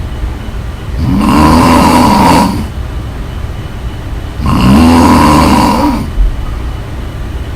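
A woman snoring loudly: two long snores about three and a half seconds apart, each lasting about a second and a half and rising then falling in pitch.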